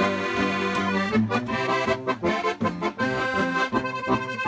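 Accordion playing a tune, with its chords changing in a steady rhythm.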